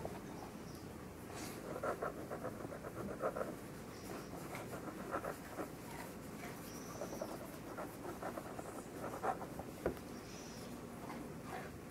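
Pencils scratching on paper as people write quickly, in short irregular spells of strokes.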